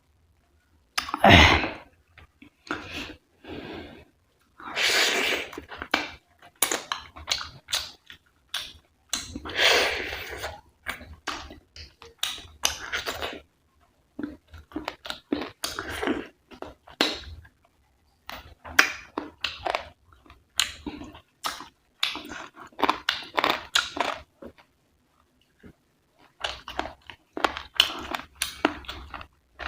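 Close-miked chewing of rice and curry: wet smacking and squishing mouth sounds in irregular clusters, with short pauses between mouthfuls.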